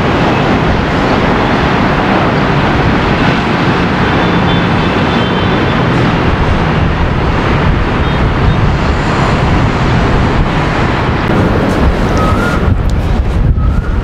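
Strong wind blowing across the camera microphone: a loud, steady rush of noise with no let-up.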